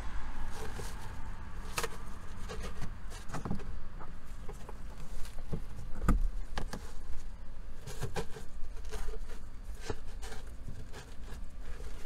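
Scattered soft clicks, taps and rustles of hands handling a fan safety net over a car's cowl air intake, over a steady low background rumble.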